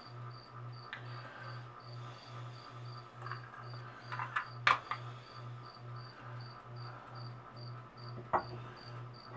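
A cricket chirping steadily, about three chirps a second. A few light clicks of metal parts being handled come about halfway through and near the end.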